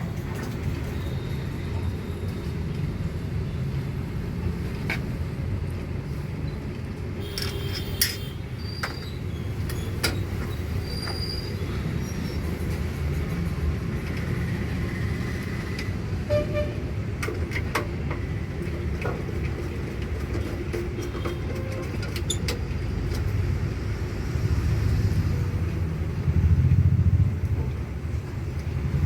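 Scattered small metallic clicks and taps from screws and a screwdriver as a hard disk is screwed into a desktop PC cabinet's drive bay, over a steady low rumble.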